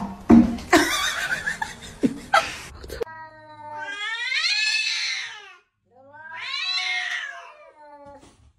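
Domestic cat yowling in a standoff with another cat: two long, wavering calls, each rising and then falling in pitch. Before them, in the first three seconds, a few sharp knocks over noise.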